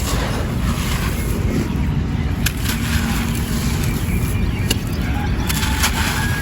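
Dry claypot pieces crumbling, with a few sharp cracks over a steady low rumble and hiss like wind on the microphone.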